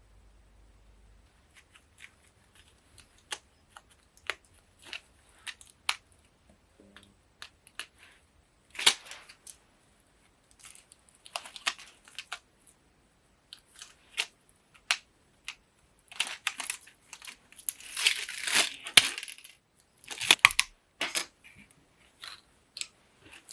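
Close-up handling sounds: a run of small clicks and taps, with bursts of rustling or crinkling. The longest and loudest burst comes about three-quarters of the way through.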